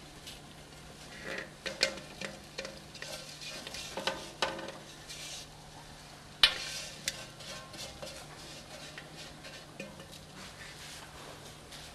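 Couscous grains poured and shaken from a ceramic plate into an aluminium couscoussier, a soft grainy hiss, with a few sharp clinks of dish on metal, the loudest about six and a half seconds in.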